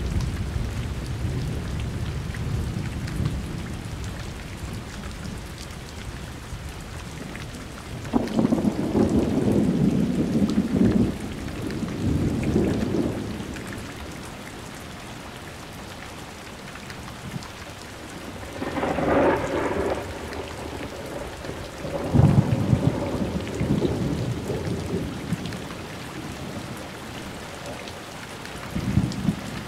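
Steady rain with repeated peals of thunder: low rolling rumbles come and go over the rain, with a sharper, higher crack a little past the middle and a short rumble near the end.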